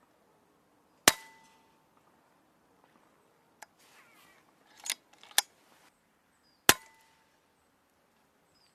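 Two shots from a magazine-fed side-lever air rifle, one about a second in and another about five and a half seconds later, each a sharp crack with a brief ringing tone. Between them come clicks and a short rasp as the side lever is worked to load the next pellet.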